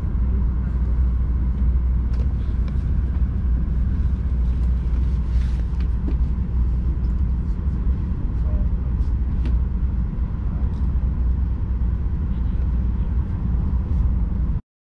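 Steady low rumble of a moving train heard from inside the passenger car, with faint scattered clicks over it; it cuts off suddenly near the end.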